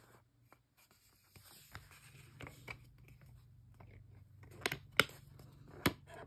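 Plastic DVD case handled as the disc is pried off the case's centre hub: light rustling and small plastic ticks, then a few sharp clicks near the end as the disc comes free.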